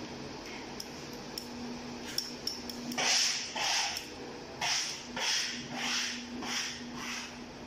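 A hand tool is worked in quick strokes across wallpaper on a wall: a few light clicks, then from about three seconds in regular rasping strokes, roughly three every two seconds. A low steady hum runs underneath.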